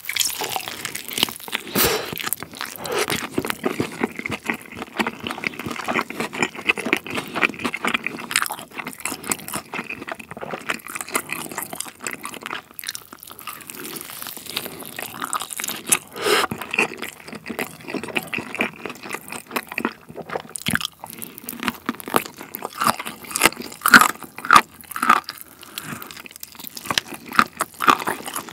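Close-miked biting and chewing of sauced fried chicken: crisp crunches of the fried coating and wet chewing, continuing throughout.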